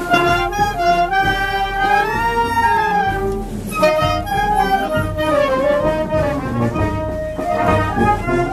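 Youth wind band playing a melody, clarinets and flute together with brass, in several voices moving together.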